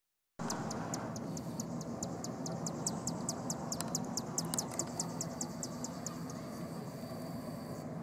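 A small songbird calling a rapid run of high, dry ticks, about seven a second, for roughly five seconds. Behind it are a steady, thin high insect drone and a low traffic rumble.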